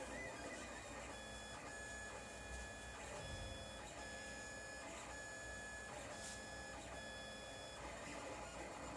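Lulzbot TAZ 5 3D printer running a print, its stepper motors whining as the print head moves. The whine comes as a run of short steady-pitched tones broken by brief pauses, from about a second in until near the end, over a low hum.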